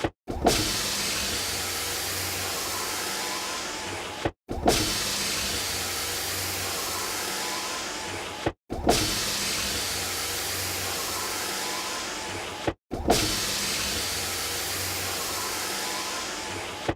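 Car power window motor running in about four repeated passes. Each pass starts with a sharp clunk, then about four seconds of steady motor whir, and ends with a small click before a brief cut.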